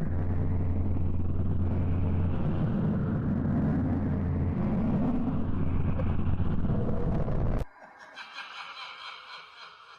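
A loud, deep rumble that cuts off suddenly near the end, followed by faint electronic tones.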